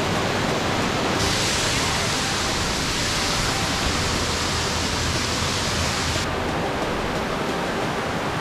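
Steady rush of a waterfall's falling water and spray, heard close up. The hiss grows brighter about a second in and drops back about six seconds in.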